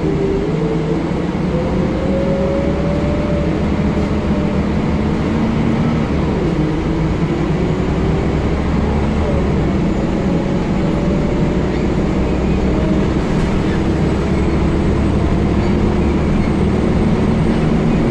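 Scania L94UB single-deck bus under way, heard from inside the passenger saloon: the rear-mounted five-cylinder diesel and driveline give a steady low drone over road noise, with whining tones that rise in pitch several times as the bus gathers speed.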